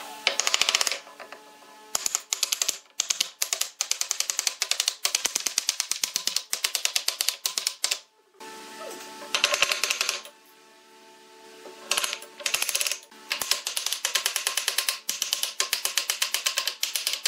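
Wooden mallet knocking pine rails and joints of a bench frame together, in quick runs of sharp taps separated by short pauses.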